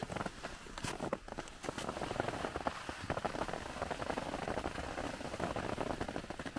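Skis sliding and scraping over packed snow, a dense run of small clicks and scrapes.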